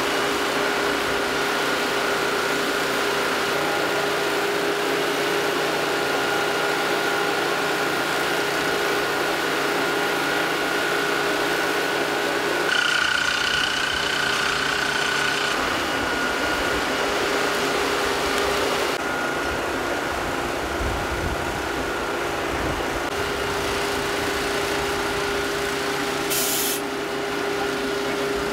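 Fire appliance's engine and pump running steadily, a continuous drone with a held hum. A short hiss comes near the end.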